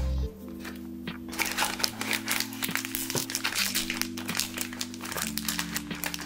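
A foil blind-box bag crinkling and crumpling in the hands, the crinkling thickening about a second and a half in. Background music with sustained chords plays underneath.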